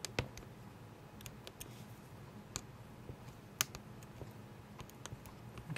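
Small, sharp clicks and taps of a flathead screwdriver tip and plastic clips as the SIM and microSD card module of a Samsung Galaxy S3 is pressed back into its housing: a few scattered faint clicks, one sharper one a little past halfway.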